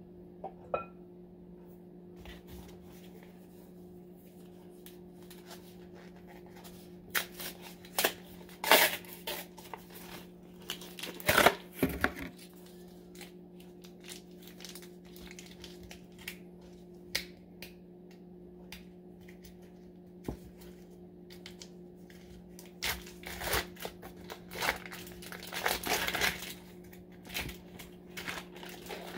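A foil-wrapped block of cream cheese being unwrapped, its foil crinkling and tearing in irregular bursts, with a few clicks and knocks. A steady low hum runs underneath.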